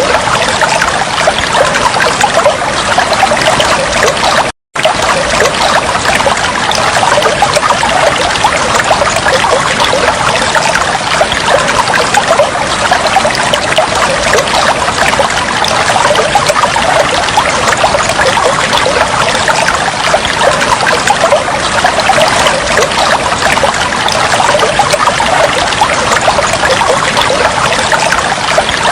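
Water flowing and trickling steadily, with a fine bubbling texture. It cuts out to silence for a split second about four and a half seconds in, then resumes unchanged.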